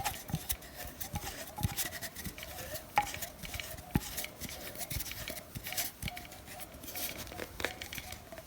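Scattered small clicks, taps and scrapes of hands working the angle grinder as its side handle is screwed into the top mount.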